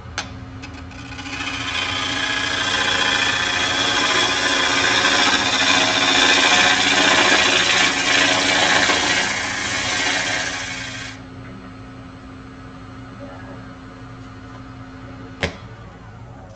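Turning tool cutting the outside of a natural-edge wood bowl spinning on a lathe: a loud shaving hiss from about a second in until it stops abruptly around eleven seconds, over the lathe's steady hum. Near the end a sharp click, and the hum stops.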